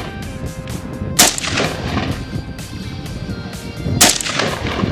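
Two rifle shots about three seconds apart, each a sharp crack trailing off in an echo.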